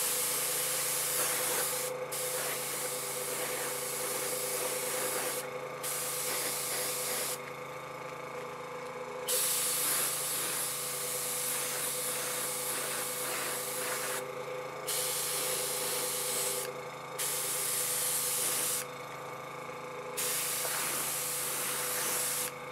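Paasche double-action airbrush spraying paint in repeated bursts of hiss, about seven bursts of one to five seconds each with short pauses between, as earth-colour weathering is dusted onto an N scale locomotive shell. A steady low hum runs underneath.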